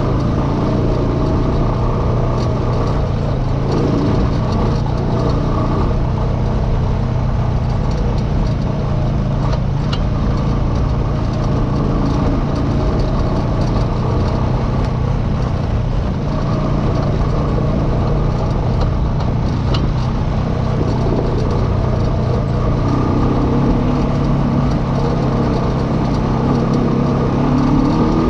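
Off-road vehicle engine running steadily, with scattered sharp clicks and knocks over it.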